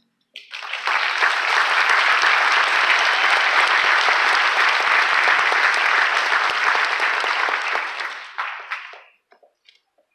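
Audience applauding. It begins about half a second in, holds steady for several seconds, then dies away with a few last claps near the end.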